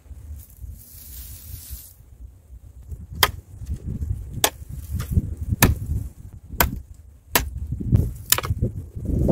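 A knife chopping at a wooden stick: about six sharp knocks, roughly a second apart, starting about three seconds in.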